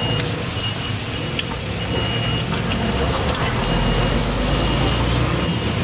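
Battered shrimp fritters deep-frying in a pot of hot oil: a steady sizzle with scattered small crackles, over a low rumble.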